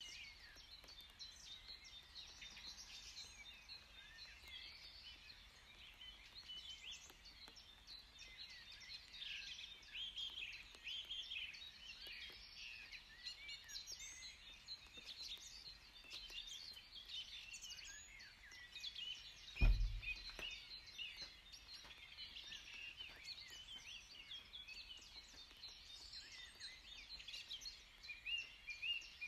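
Many songbirds singing and chirping at once in a dense, continuous chorus. A single low thump about two-thirds of the way through.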